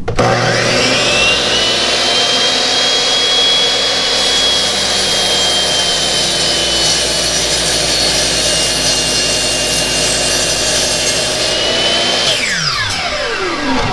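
DeWalt miter saw's motor starting and spinning up to a high steady whine while the blade cuts slowly through a wooden block. Near the end the trigger is released and the motor winds down in a falling whine.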